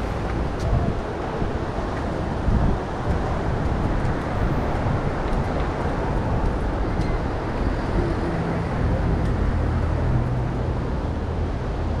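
Steady road traffic noise from passing cars, with a vehicle engine's low hum standing out for a few seconds near the end.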